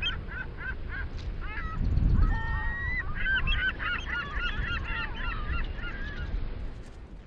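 Seabirds calling in many short, wavering notes, the calls crowding together from about three seconds in, over a low rush of wind and sea.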